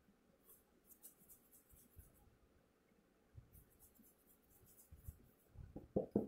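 Faint scratchy rustling of hands working through the hair of a mannequin head in two spells, then a few louder soft thumps near the end as the head and ponytail are handled close to the microphone.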